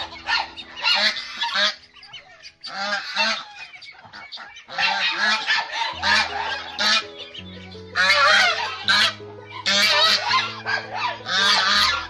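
Domestic geese honking repeatedly in a loud series of calls, with short lulls, over steady low background music.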